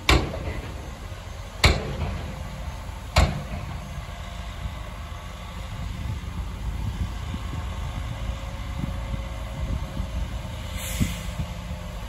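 Diesel engine of heavy earthmoving machinery running with a steady low rumble. Three loud bangs come in the first few seconds, about a second and a half apart, and there is a brief hiss near the end.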